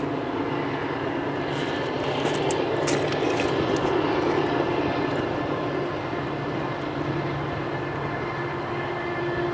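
Diesel locomotives of a long double-stack freight train running on a mountain grade, a steady drone of engine noise carrying several held tones. A few sharp ticks come about two to three seconds in.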